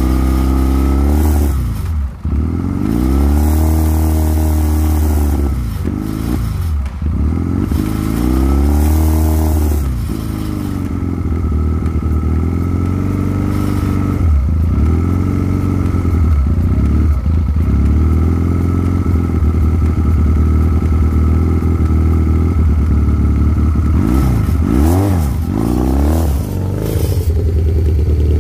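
Chinese 250cc ATV's single-cylinder engine running, revved up and back down again and again on the throttle, then pulling away near the end.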